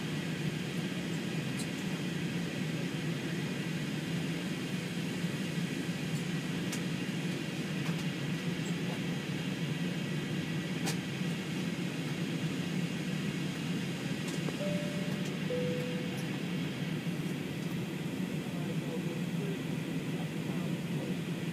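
Steady cabin noise inside an Airbus A320 on approach, a constant low rumble of the jet engines and airflow with no change in pitch. A brief falling two-note tone sounds about 15 seconds in.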